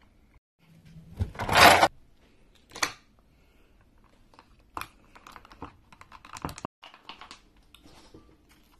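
Plastic straw stirring and scraping in a plastic cup of milkshake, with the cup being handled: a loud rustling rush about a second and a half in, a shorter one about a second later, then a run of light clicks and scrapes.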